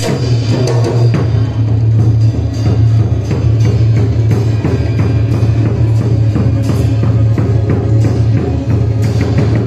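Music with drums and other percussion, playing continuously at an even, loud level.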